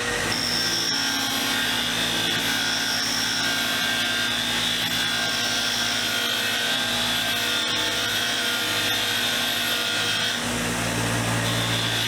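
Motor-driven wire wheel running with metal screwdriver parts held against it to strip off rust and grime: a steady motor whine under the scratchy scrubbing of the wire bristles. The scrubbing eases about ten and a half seconds in while the motor keeps running.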